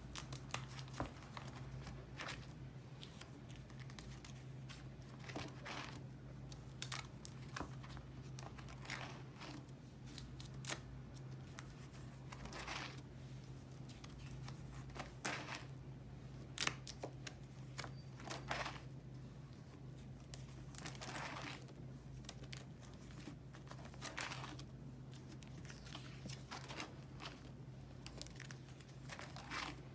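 Clear plastic binder sleeves crinkling and rustling in short irregular bursts as the pages of a ring binder are turned and handled, over a low steady hum.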